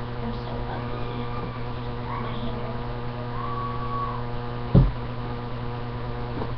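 Steady electrical mains hum with a buzzy stack of overtones, with a single sharp thump about five seconds in.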